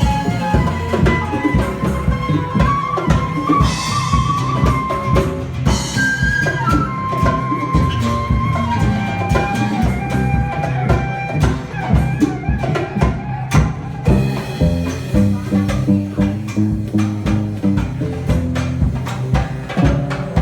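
Live band playing an instrumental tune: a drum kit keeps a steady beat under a bass line and a lead melody.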